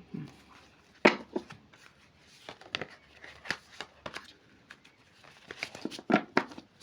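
A deck of Lenormand fortune-telling cards being shuffled by hand: a string of irregular soft clicks and rustles.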